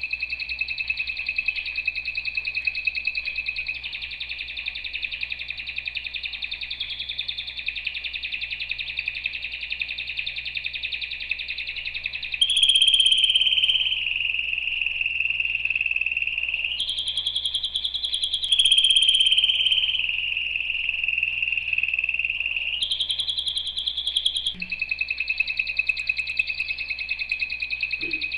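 Domestic canary singing a long, unbroken song of very rapid rolling trills. It switches several times to a higher, louder trill phrase, about twelve seconds in, again around seventeen to twenty seconds, and near twenty-three seconds.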